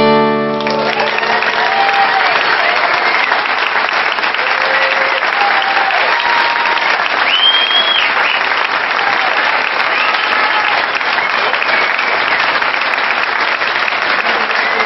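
The last acoustic guitar chord cuts off about half a second in, and a live audience applauds at the end of the song, with scattered cheers and whistles over dense clapping.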